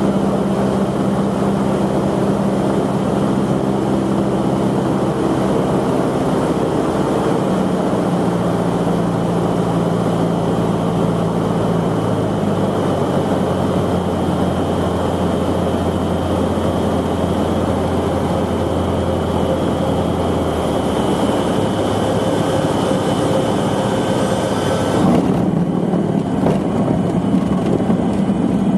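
Cessna 150's four-cylinder Continental O-200 engine and propeller droning in flight, heard from inside the cabin. The engine note steps to a new pitch a few times. About 25 seconds in, the high rushing noise drops away and the low rumble grows.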